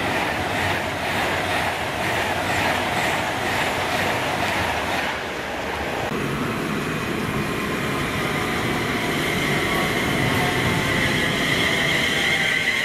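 A passenger train running past with its wheels clicking in an even rhythm, fading about five seconds in. After that a London Northwestern Class 350 Desiro electric unit approaches, its high whine growing louder toward the end.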